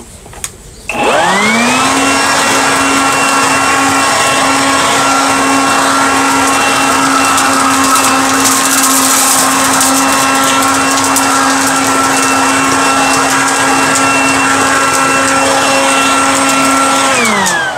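Kaltmann Titanium KTI-ODL2X20V 40V cordless leaf blower-vacuum with a brushless motor, run on two 20V batteries: the motor spins up with a quick rising whine about a second in, runs at a steady high pitch over a rush of air, then winds down with a falling whine near the end.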